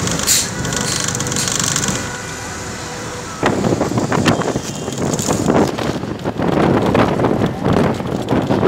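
Steady road and engine noise from inside a moving vehicle. About three and a half seconds in, it gives way suddenly to loud, gusting wind buffeting the microphone at the open window.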